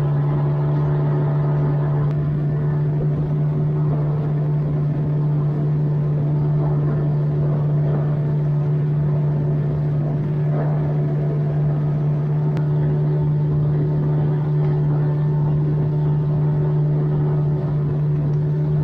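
Outboard motor of an inflatable motorboat running at a steady cruising speed, its drone holding one unchanging pitch, over a hiss of water and wind.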